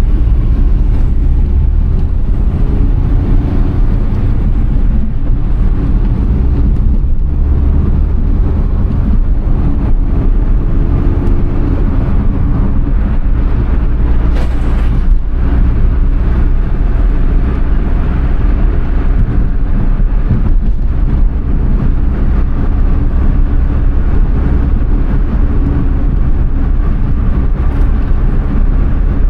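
Suzuki Alto Works HA11S kei car driving, its small three-cylinder turbo engine running steadily under road and tyre noise. The engine pitch rises and falls a little a few times, and there is one short sharp noise about halfway through.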